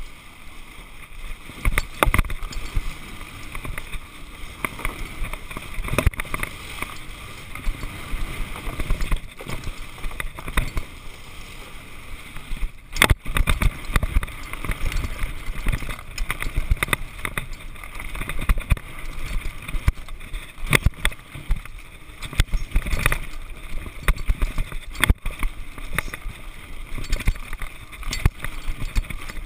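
Mountain bike ridden fast over a rough forest trail, picked up through a handlebar-mounted camera: constant rattling and knocking from bumps, with tyre noise on dirt and boardwalk. Sharp knocks stand out, the loudest about 13 seconds in and again near 25 seconds.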